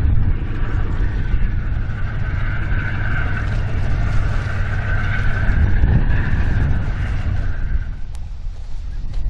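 Steady low diesel engine rumble with a wavering whine above it, mixed with wind buffeting the microphone, from a tug pushing a self-unloading barge past at close range. The rumble and whine drop away about eight seconds in, leaving mostly wind.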